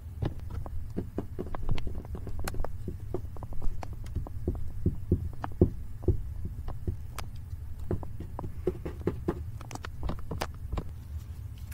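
Crumpled aluminium foil and paper being handled and crinkled, a run of irregular sharp crackles over a steady low hum.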